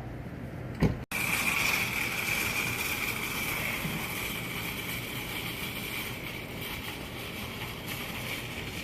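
Steady outdoor night ambience, a hiss with a steady high-pitched buzz in it. It is broken about a second in by a short bump and a sudden cut, after which it comes back louder and slowly eases off.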